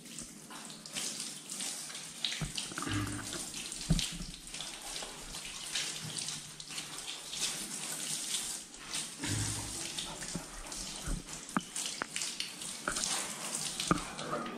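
Shower water spraying onto a wet puppy's fur and a tiled floor: a steady splashing hiss with scattered sharp taps.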